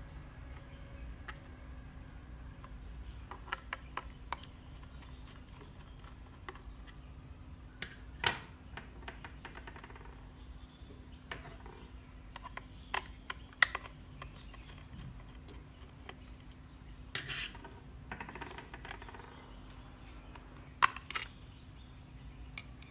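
Irregular small clicks and taps of a screwdriver and plastic doorbell casing being handled while the back of the doorbell is unscrewed and opened, a few taps louder than the rest. A faint steady hum runs underneath.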